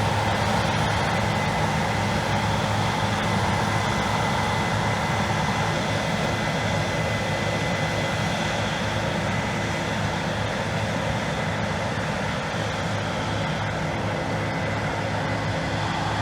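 Harvest machinery engine running steadily, a continuous drone with a thin high whine on top, easing off slightly in the second half.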